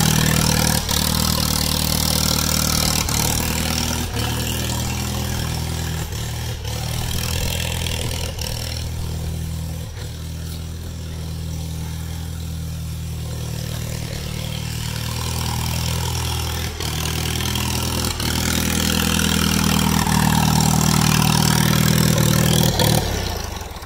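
Massey-Harris Pony tractor's small four-cylinder flathead petrol engine idling steadily. It grows softer through the middle and comes back up near the end.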